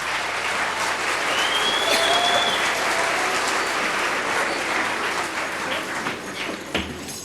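Audience applauding after a song, dying down near the end.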